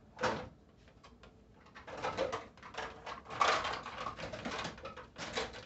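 Thin clear plastic takeout container crackling and clicking as it is handled and picked at with wooden chopsticks. There is one sharp crack just after the start, then a dense run of crinkles and clicks through most of the rest.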